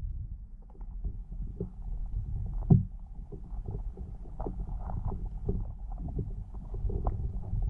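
Muffled underwater sound picked up by a GoPro camera in its waterproof housing: a low rumble of moving water with scattered small clicks and pops, and one louder knock a little under three seconds in.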